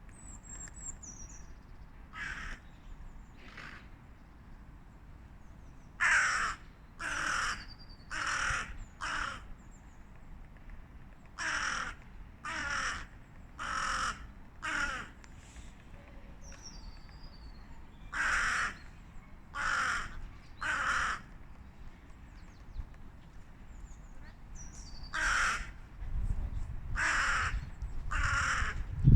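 Crow cawing in bouts of harsh calls: two single caws, then runs of four to six with pauses between. Faint thin high bird notes come between the bouts, and a low rumble sets in near the end.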